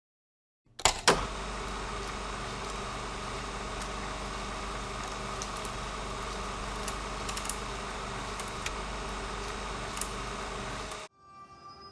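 Two sharp clicks, then a steady hiss with a low hum and scattered faint ticks, which cuts off suddenly about a second before the end.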